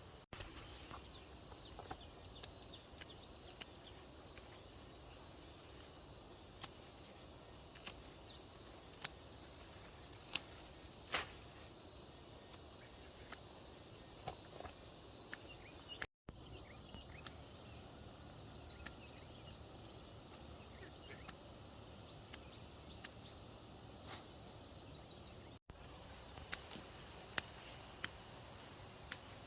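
Outdoor ambience in which an insect gives a short, high, pulsing trill about every five seconds, over a steady background hiss with scattered sharp clicks.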